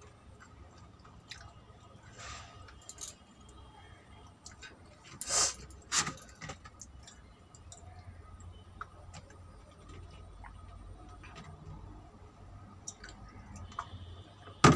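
Faint chewing and mouth sounds of a person eating rice by hand, with swallowing as she drinks from a mug in the second half. Two short, sharp sounds stand out about five and six seconds in.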